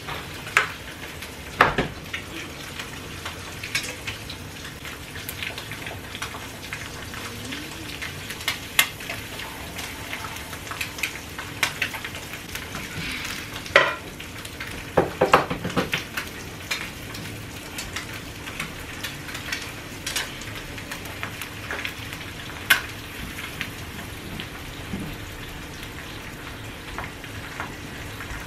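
Egg white sizzling in a hot oiled frying pan on a gas burner: a steady crackle with scattered pops. A few louder clicks and knocks come through, mostly in the middle.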